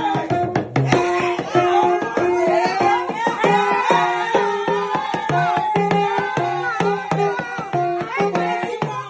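Background music: a melody over a steady, quick drum beat.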